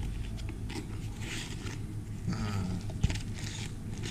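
Cardboard box being pulled open and handled: scraping and rustling of the cardboard flap, with a sharp click about three seconds in.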